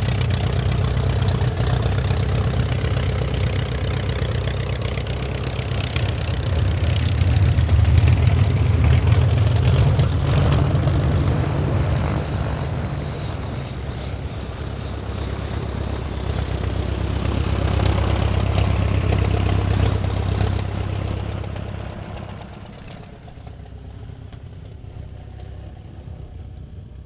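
Focke-Wulf Fw 44 J Stieglitz biplane's seven-cylinder radial engine and propeller in display flight, loud as it passes. The sound swells about eight seconds in, dips, swells again on a second pass, and fades away over the last few seconds.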